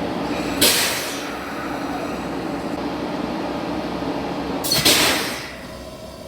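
Electric train's air compressor running steadily, with two sharp hissing "shupan!" bursts about four seconds apart: the automatic drain valve blowing out moisture condensed from the compressed air. The second burst is the louder one.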